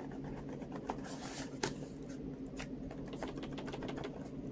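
Faint, scattered clicks from an Attack Shark X98 full-size mechanical keyboard being handled, over a low steady background hum.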